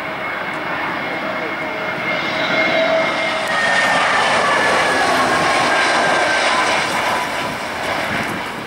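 An Airbus A320neo airliner's CFM LEAP-1A turbofans on final approach, the jet noise swelling to its loudest midway as the aircraft passes low overhead. Whining tones slide down in pitch as it goes by, and the noise eases off near the end.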